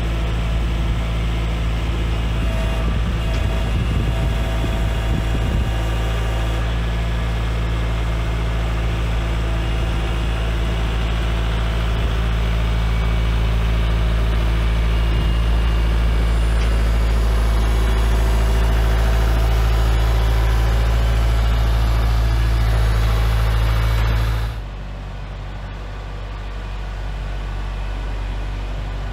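Kubota compact tractor's diesel engine running steadily while its front loader lifts a load. About 24 seconds in, the sound cuts abruptly to a quieter, steady hum.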